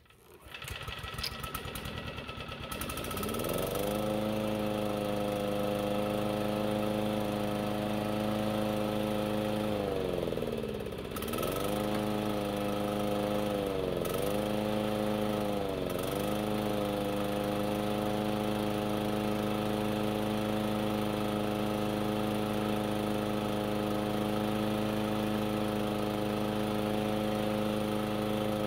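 Toro 22187 Heavy Duty Recycler walk-behind mower's engine starting up and speeding up to a steady run. Its speed sags briefly and recovers about ten seconds in, and twice more a few seconds later, then holds steady.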